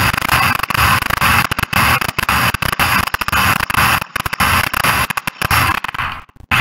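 A small electric kitchen grinding appliance running loud, milling oven-baked baking soda into powder, with rapid uneven dropouts and a short break just before the end.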